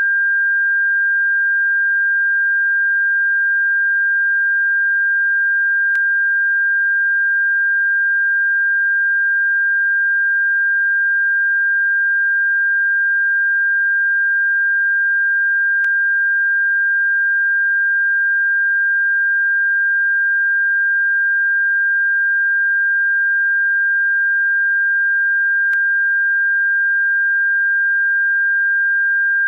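Electronically generated bird-repellent tone: a single steady, unwavering high pure tone that holds at one pitch and one loudness, with a very faint tick about every ten seconds.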